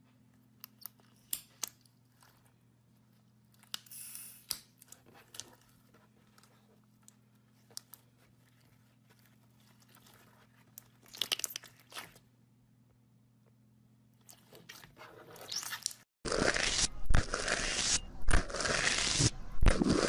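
Slime being pressed and squeezed by hand: scattered crackles and small pops at first, then, about sixteen seconds in, a much louder, dense run of crunchy crackling and squishing.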